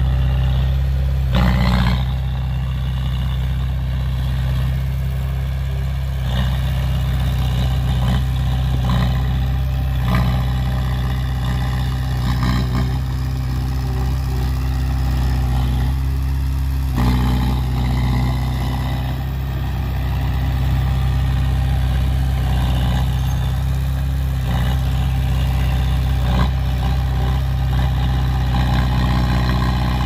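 Small crawler bulldozer's diesel engine running steadily as it pushes dirt, with a few sharp clanks from the machine about a second and a half in, around six and seventeen seconds, and near the end.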